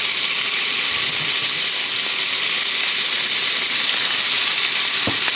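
Beef sizzling as it browns in hot oil in a large steel pot over a camp-stove burner on full blast: a steady hiss, with a light knock near the end.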